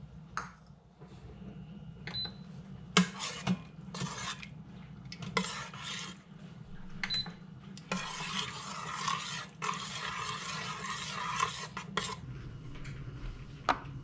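A metal spoon stirring a wet cheese mixture in a slow cooker's stainless steel insert. First scattered clinks and scrapes of the spoon against the pot, then about four seconds of steady stirring and scraping, ending a couple of seconds before the end.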